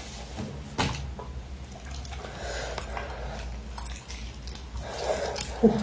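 Wet, sticky eating sounds of spicy soft-shell turtle being handled and eaten, with a sharp click about a second in and a short squeaky slurp near the end.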